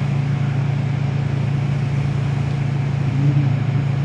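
Kawasaki Vulcan motorcycle engine running at a steady pitch while cruising, with wind and road noise around it.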